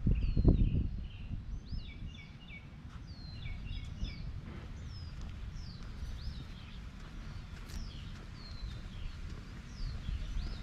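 Songbirds calling: short chirps repeated in quick groups and sweeping rising-and-falling whistles, over a low rumble of footsteps that is loudest about half a second in.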